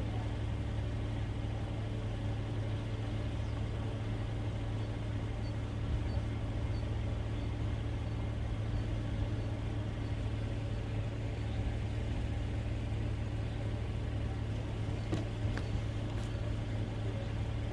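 Car engine idling with a steady low hum.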